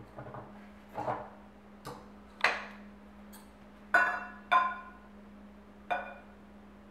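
A few knocks as the blender jar is handled and opened, then three ringing clinks as its rim taps a stainless-steel measuring cup while mango puree is poured.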